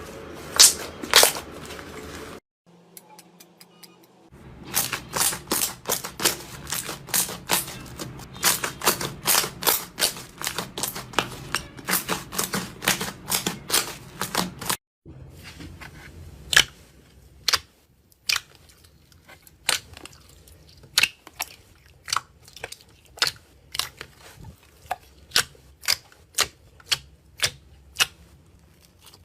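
Slime being squeezed and pressed by hand, giving runs of sharp popping clicks as trapped air bubbles burst, several a second, broken by a few short silent gaps.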